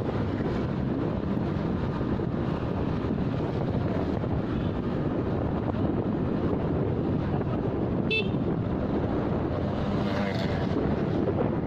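Motorcycle riding along with steady wind noise on the microphone and the engine running, and one short, high horn beep about eight seconds in.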